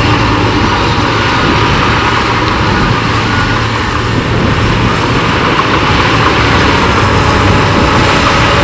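Heavy diesel earthmoving machinery running steadily under load, a loud, continuous engine noise.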